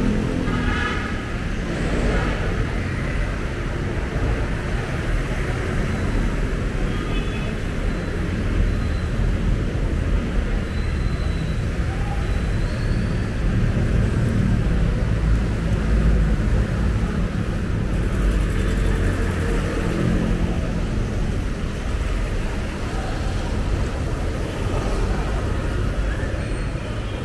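City street traffic: a steady rumble of passing vehicles.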